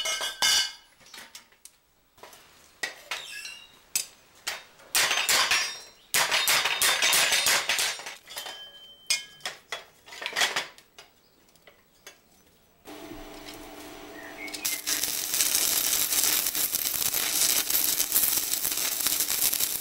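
Irregular hammer strikes and clanking of small steel pieces on a metal welding table. From about fifteen seconds in, a stick welder's arc crackles steadily and loudly.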